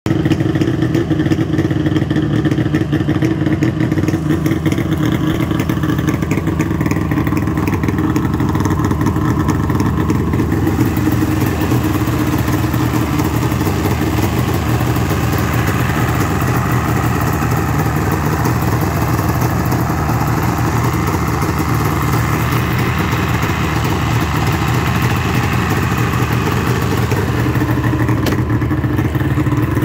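1999 Yamaha SRX 700's three-cylinder two-stroke engine idling steadily through its chrome triple-pipe exhaust.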